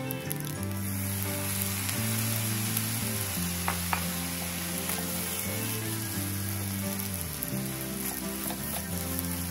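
Soy sauce hitting a hot pan of fried rice and sizzling, the hiss swelling about a second in, while a slotted spatula stirs through the rice with a few light knocks against the nonstick pan.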